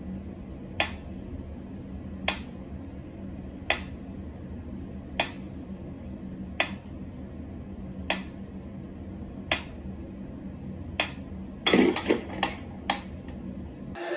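Mechanical pyramid metronome ticking slowly and evenly, about one tick every second and a half, over a low steady hum. Near the end, four quicker, louder knocks.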